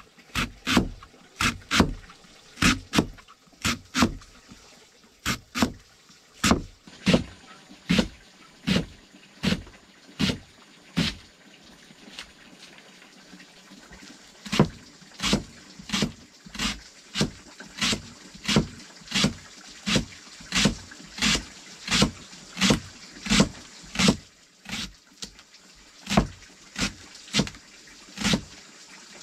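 A steady series of sharp knocks, about two a second, with a pause of a few seconds about a third of the way in.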